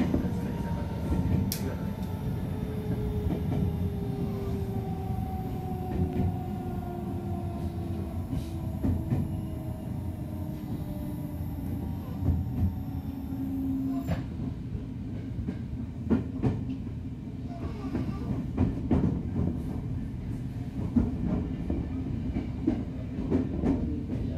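Tokyo Metro 07 series train's VVVF inverter whining in two tones that fall slowly in pitch as the train slows under electric braking, over steady wheel-and-rail rumble. About halfway through the inverter tone cuts off, leaving the rumble and irregular clacks of the wheels over rail joints.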